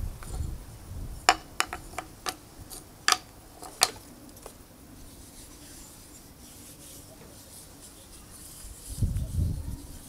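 A series of sharp clicks and knocks, about eight in three seconds, as small wooden craft pieces are set down and shifted on a ceramic mosaic tabletop. Low rumbling at the start and again about nine seconds in.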